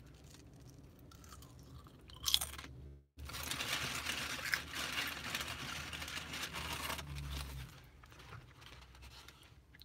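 Chips being bitten and chewed with loud crunches close to the microphone: one sharp crunch about two seconds in, then a longer stretch of dense crunching with a low rumble under it that dies down near the end.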